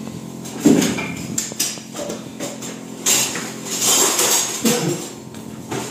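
Metal kitchenware clanking and scraping against a stainless-steel cooking pot: a sharp clank about half a second in is the loudest, followed by a few lighter knocks and a scraping hiss.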